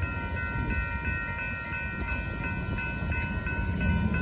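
Railroad grade-crossing bell ringing steadily, about three strokes a second, over the low rumble of a passing freight train of gravel hopper cars, which grows louder near the end.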